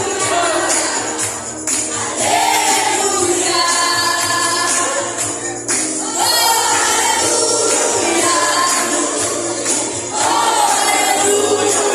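Gospel hymn being sung: voices holding and bending long notes in phrases over instrumental backing with a jingling percussion part.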